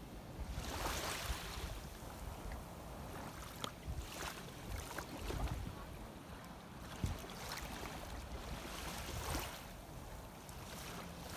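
Shallow seawater sloshing and swishing in uneven swells, with a few small sharp splashes.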